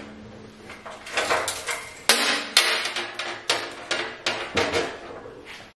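Harbor Freight 4x6 band saw running with its gearbox cover off: a steady motor hum, and from about a second in a string of irregular sharp knocks and clatter.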